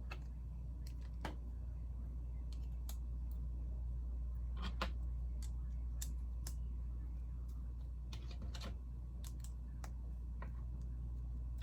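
Loose Lego pieces clicking against each other as they are picked out of a pile: a dozen or so light, irregular clicks over a steady low hum.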